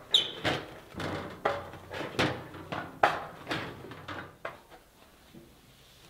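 Tin snips cutting thin sheet metal: a run of sharp snips, about two a second, ending about four and a half seconds in.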